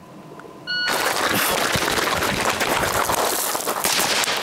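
A shot timer beeps once, a short high electronic tone, and right after it a loud, steady rustling and rushing noise sets in from a shooter running with an airsoft rifle and gear.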